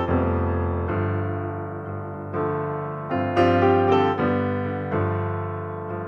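Background piano music: chords and notes struck one after another, each ringing and fading away.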